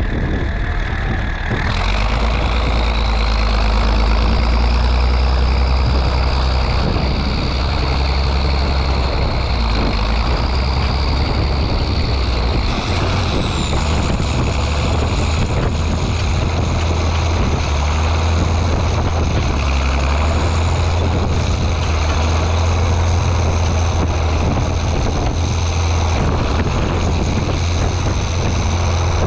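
Tractor engine running steadily under a low drone while it pulls a Kelly Ryan Feed-R-Wagon feeder wagon whose conveyor is unloading feed. A high thin whine runs over it, jumping higher about halfway through and then slowly sinking.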